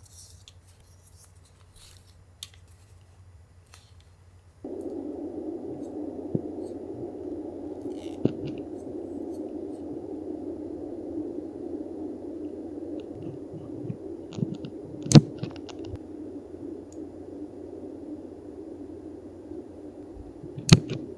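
Steady, muffled noise, strongest low in the range, picked up by a wireless lavalier mic placed inside the earcup of an EPOS H3Pro wireless headset with its active noise cancelling off. The noise starts suddenly about four and a half seconds in. A few sharp clicks come through it, the loudest two in the second half.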